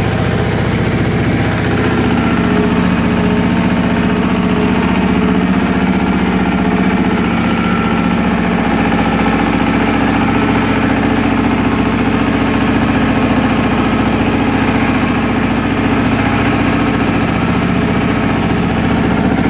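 Goldoni Universal compact tractor's engine running steadily as the tractor drives along a dirt forest track, heard close up from the driver's seat.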